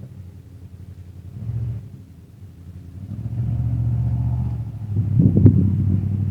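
Off-highway vehicle engine droning low in the distance, swelling louder about three seconds in. Near the end, uneven gusts of wind buffet the microphone.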